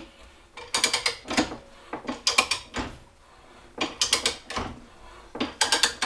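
Ridgid ratcheting hand pipe threader being worked on steel pipe: the handle's pawl clicks in short quick runs, about one run a second, as the die is turned back and forth to cut the thread and break the chip.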